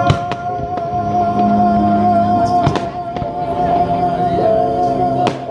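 Fireworks display over a Christmas music soundtrack: the music holds one long note while several firework shells go off with sharp bangs, a pair about two and a half seconds in and the strongest near the end as the note stops.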